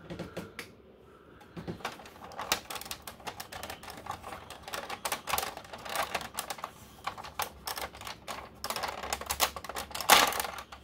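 Hard plastic clicks and rattles of a G.I. Joe Night Raven toy jet being handled, its parts worked by hand, with a louder clack about ten seconds in.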